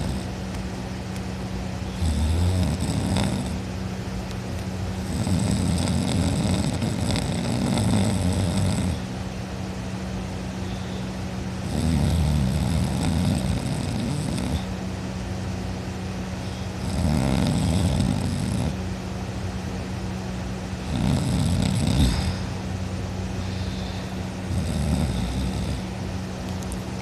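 A sleeping person snoring loudly, one rough snore on each breath about every four to five seconds.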